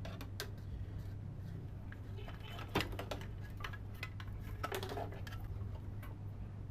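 Scattered light clicks and clatter of small hard objects being handled, with one sharp click about three seconds in, over a steady low hum.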